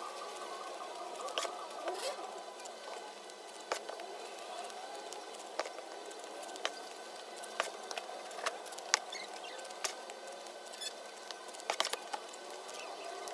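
Large scissors snipping and clicking: a scatter of short, sharp clicks at irregular intervals over a faint steady background.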